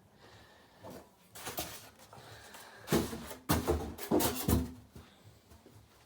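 Handling noises: a handful of knocks and scuffs, bunched together and loudest about halfway through, with a few quieter ones earlier.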